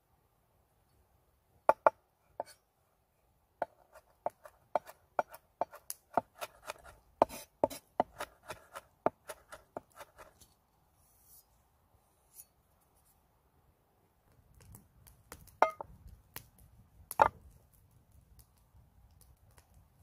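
Kitchen knife chopping fresh rosemary on a wooden cutting board: a run of sharp knocks, close to three a second, for about six seconds. A few single knocks come before the run, and two louder ones come near the end.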